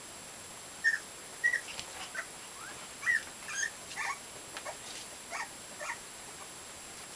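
Young puppies whimpering: about a dozen short, high-pitched squeaks, some sliding up or down in pitch, starting about a second in. The first few are the loudest.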